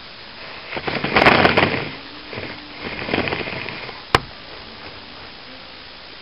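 Two bursts of crackling, rustling noise about a second apart, then a single sharp click.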